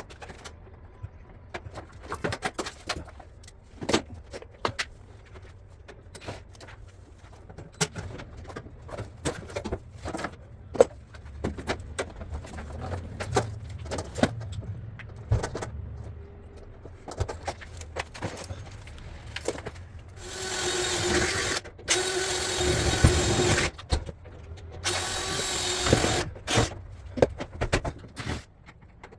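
Scattered clicks and knocks of parts being handled, then about twenty seconds in, a power drill-driver runs twice at a steady speed, first for about three seconds and then, after a short pause, for under two seconds.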